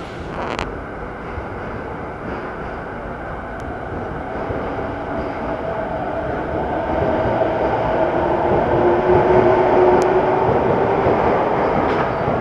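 E217-series electric train pulling out and accelerating past: a continuous rumble of wheels on the rails that grows steadily louder, with a motor whine strengthening from about halfway through.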